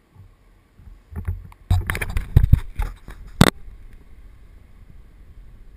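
Handling noise on the camera's housing: a cluster of irregular knocks and rubbing with deep thumps, ending in one sharp click, followed by a faint steady hiss.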